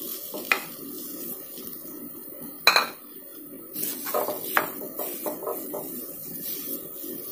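A wooden spatula scrapes thick ground chana dal paste into a non-stick kadhai and pushes it around, with scraping and several sharp knocks against the pan. The loudest knock comes about two and a half seconds in, and a run of quicker knocks follows around four to five seconds in.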